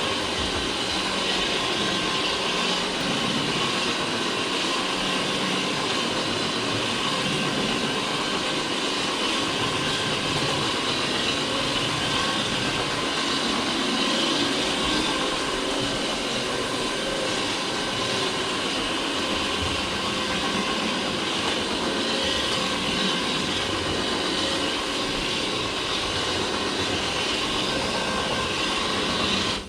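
Steady roar of cleaning machinery running without a break, cutting off abruptly at the end.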